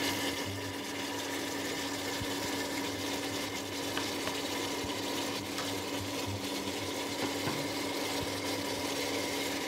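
A wooden spatula stirring soaked whole lentils with garlic and bay leaves in a pot, with a few light knocks. Underneath runs a steady hum with a hiss.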